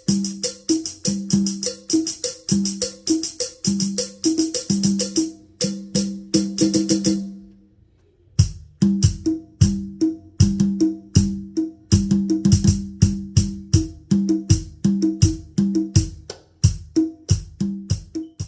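Percussion rhythm played on a Yamaha PSR-S970 keyboard: a steady pattern of pitched drum hits with a jingling tambourine on top. It stops for a moment about seven and a half seconds in, then starts again.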